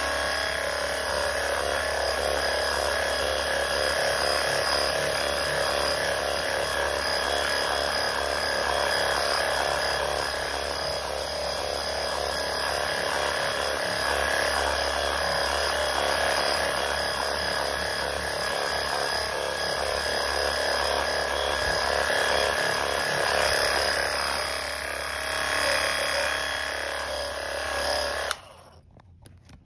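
WORX Hydroshot battery-powered portable sprayer running steadily, its pump motor giving an even whine while it mists cleaning solution onto the carpet. It cuts off suddenly near the end as the trigger is let go.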